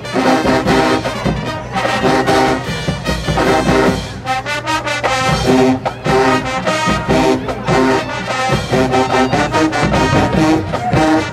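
Marching band playing live: sousaphones, trumpets and trombones over drums, with a steady beat.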